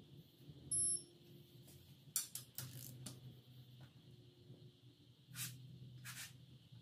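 An electronic torque wrench gives one short high-pitched beep about a second in, signalling that an ARP head-stud nut has reached its set torque. Then come a few sharp metallic clicks and clinks as the wrench and socket are worked onto the next nuts.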